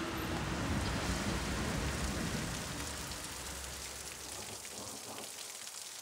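A steady hiss of noise, like television static, that slowly fades away; its low rumble drops out near the end.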